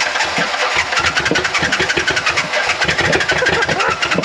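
Pickup truck engine turning over on its starter, jumped by hand under the hood, and sputtering unevenly as it tries to catch: it is running on only about two and a half of its cylinders.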